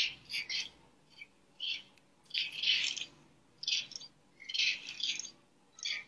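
Repeated short, high-pitched squawking animal calls with pauses between them, one longer call near the middle.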